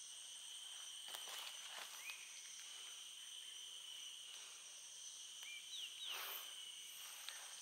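Faint outdoor insect chorus: a steady, high-pitched drone of crickets or cicadas, with a few short bird chirps and a brief swish of noise about six seconds in.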